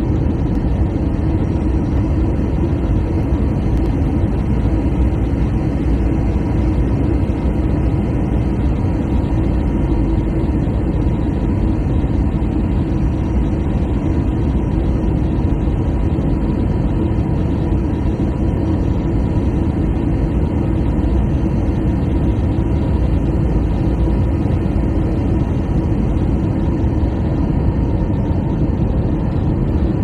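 An engine running steadily as a constant low drone, with a faint thin steady tone above it.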